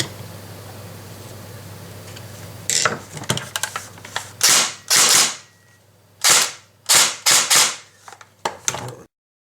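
An M4-style airsoft electric gun (AEG) firing several short bursts of about half a second each, with a few lone shots around them, starting about three seconds in. It is a test fire after fitting a new pistol grip and adjusting the motor screw, to check the motor is engaging the gears properly. The sound cuts off abruptly near the end.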